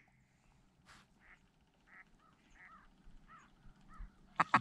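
Mallard-type quacking: scattered faint quacks, then a loud, fast run of quacks starting near the end.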